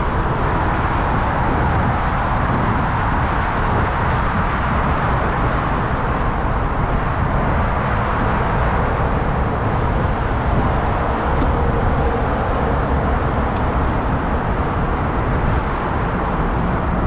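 Steady, loud rushing noise on a kayak-mounted GoPro's microphone, the buffeting of wind mixed with water moving around the kayak, with a few faint ticks.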